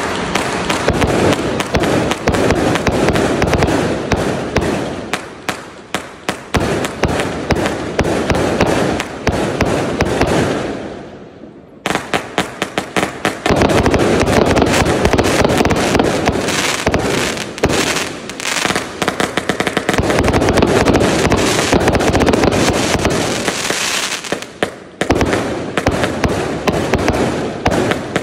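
A 278-shot, 0.8-inch consumer fireworks cake firing in rapid succession: a dense, unbroken stream of launch thumps and bursting, crackling stars. The firing eases off about ten seconds in, falls briefly quiet, then starts again at full rate.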